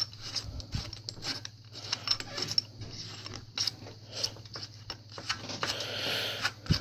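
Irregular small metal clicks and scrapes of a hand tool working the bolts loose on a mountain bike's handlebar stem, with a longer scraping stretch about a second before the end.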